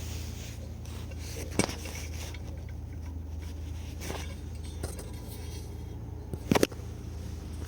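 A few sharp metallic clinks of small metal engine parts being handled, the loudest a double clink near the end, over a steady low hum.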